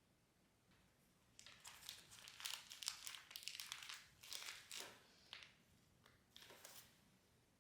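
Crinkling and rustling of something thin, like a wrapper or bag, handled in a dense run of crackles for about four seconds, then briefly again near the end.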